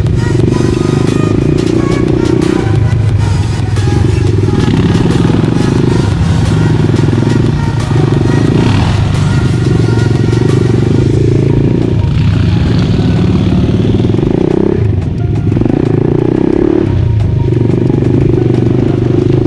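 ATV engine running while riding, the throttle opening and closing every second or two.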